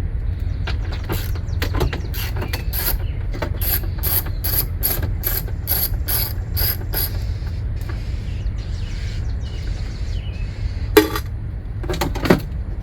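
Hand ratchet wrench clicking in quick, even strokes, about three to four clicks a second, for several seconds, then two sharper knocks near the end, over a steady low hum.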